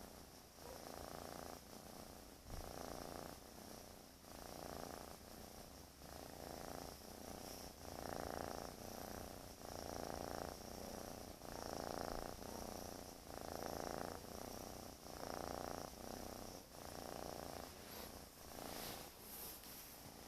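Domestic cat snoring in its sleep: a noisy snore on each breath in and out, repeating steadily about once every two seconds.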